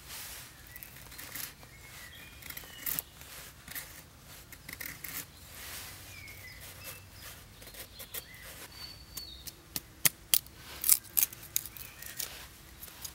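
A knife blade cutting and splitting thin dry sticks and stalks: a run of sharp snips and clicks, with a cluster of louder ones about ten seconds in. Birds chirp faintly now and then.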